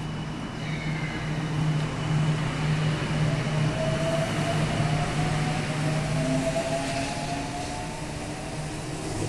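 Odakyu 30000 series Romancecar EXE electric train pulling out past the platform. Its traction motors give a whine that rises slowly in pitch as it gathers speed, over a steady low running hum.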